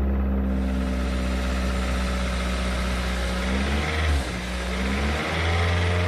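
Car engine running at idle, blipped up in revs about three and a half seconds in and again near the end.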